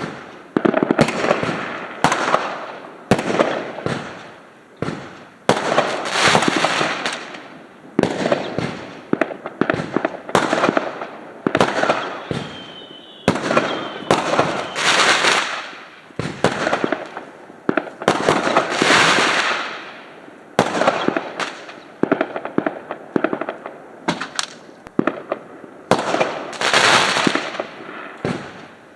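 Fireworks going off in a long, irregular run of sharp bangs, one every second or two, each trailing off in a fading crackle. A brief whistle about twelve seconds in.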